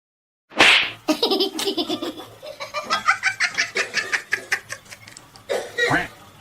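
A person laughing hard in a long run of rapid, repeated bursts, starting with a loud sudden outburst about half a second in and flaring up again near the end.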